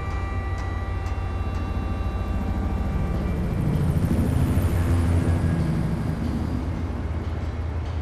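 A low, steady rumble, like an aircraft passing overhead, that swells to its loudest about halfway through and then fades. A faint steady whine is heard in the first few seconds.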